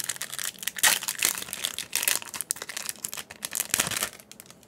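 Foil trading-card booster pack crinkling and rustling as it is handled and opened, the crackle dying down near the end.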